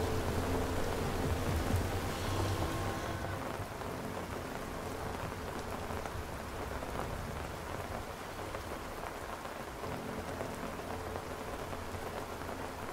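Steady rain falling on pavement and water, an even hiss, with a low rumble underneath that is strongest in the first few seconds.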